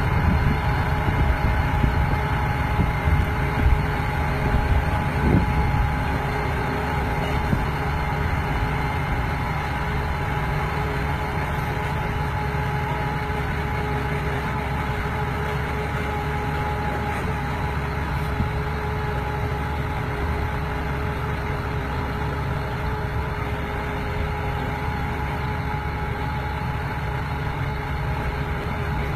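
Engine of a tracked multi-arm trenching machine, carrying a row of backhoe arms, running steadily while the arms dig, with a steady whine over the engine noise.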